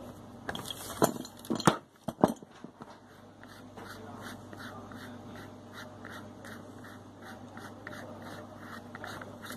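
Metal pliers knocking against a single-lever mixer tap as its ceramic cartridge is loosened, a few sharp knocks in the first two seconds. Then the cartridge is turned out of the tap body by hand, giving a run of soft, evenly spaced scrapes.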